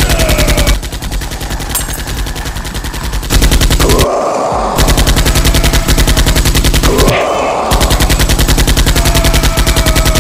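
Sustained rapid automatic gunfire, a fast even stream of shots typical of a machine-gun sound effect. It breaks off briefly twice, about four and seven seconds in.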